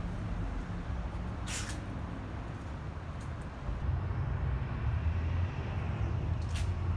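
Low, uneven outdoor rumble, louder in the second half, with two short hisses about a second and a half in and near the end.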